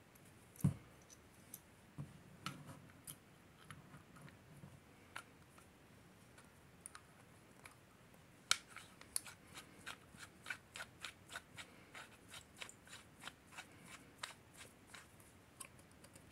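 Machined metal air-rifle valve parts being handled and screwed together by hand: a knock early on, scattered metallic clicks, then from about halfway a steady run of light clicks, about three a second, as the threads turn.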